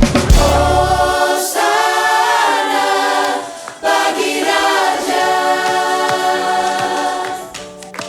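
Mixed worship choir singing sustained chords. Drums and bass stop about a second in, leaving the voices almost unaccompanied, and the singing eases off near the end.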